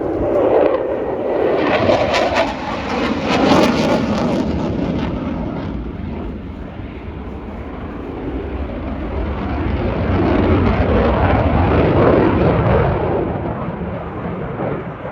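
Loud roar of an aircraft flying past, crackly over the first few seconds, easing off in the middle and swelling again near the end.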